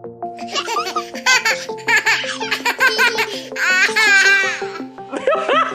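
A person laughing hard in repeated peals over light background music, with a long, wavering giggle about four seconds in.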